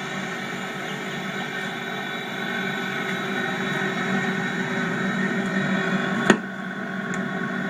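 Commercial glass-door refrigerator running: a steady machine hum from its compressor and fans, with one sharp click about six seconds in.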